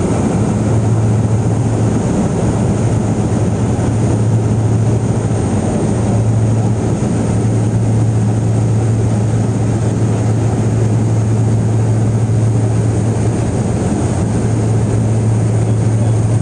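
Cabin noise of a de Havilland Canada DHC-6 Twin Otter in flight: its two turboprop engines and propellers running steadily, a loud drone with a strong low hum under it.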